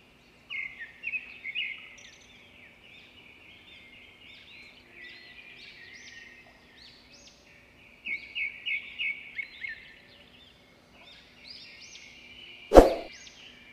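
Small birds chirping in quick runs of short, rising calls, over a faint steady hum, with one sharp thump near the end that is the loudest sound.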